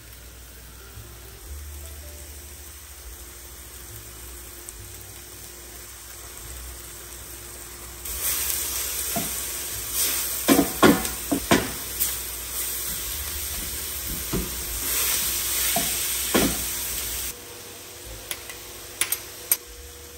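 Minced meat frying in a stainless-steel pan: a faint sizzle at first, then loud sizzling from about eight seconds in. A wooden spatula scrapes and knocks against the pan as the mince is stirred. The sizzle cuts off suddenly about nine seconds later, and a few light clicks follow.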